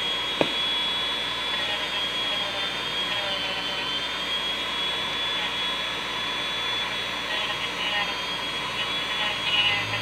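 Handheld rotary tool with a cutoff disc running at high speed with a steady high whine, trimming down a doll's neck connector. A sharp click sounds about half a second in.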